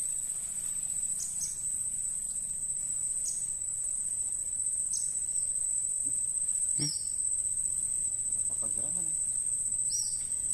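Insects droning steadily at a high pitch, with a few short high chirps over the drone.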